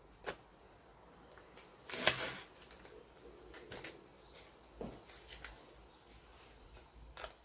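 Masking tape and paper being handled and pressed down with gloved hands: soft rustles and a few light taps, with a louder short rasp about two seconds in.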